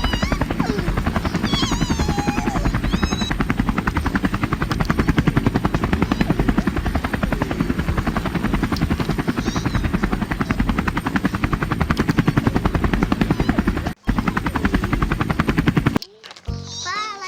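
Helicopter rotor sound: a rapid, steady chopping that breaks off briefly about fourteen seconds in and stops shortly before the end.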